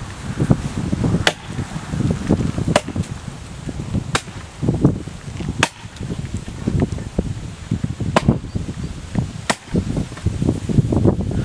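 Double bit axe striking the hard honey locust wood: six sharp chops, roughly one every second and a half with one longer pause, over a steady low rustle of wind and grass.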